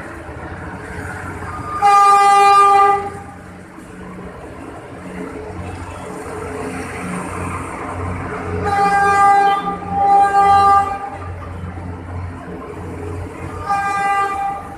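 Diesel locomotive horn of a passing commuter train, blown four times: one blast about two seconds in, two more close together about seven seconds later, and a shorter one near the end. Between the blasts there is a low, steady train rumble.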